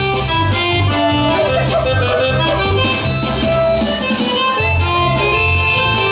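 Lively dance music: an accordion-sounding melody over bass notes that repeat in a regular beat.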